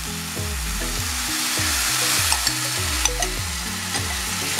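Chicken breasts and chopped green onions sizzling in a hot frying pan as cream is poured in. The sizzle swells in the middle, with a few small pops. Soft background music with a repeating bass line runs underneath.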